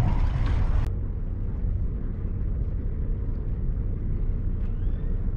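Wind buffeting the microphone: a steady low rumble with a faint hiss above it, the hiss cutting off about a second in.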